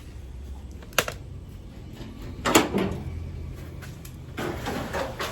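Two sharp knocks about a second and a half apart, then a longer rattling clatter near the end.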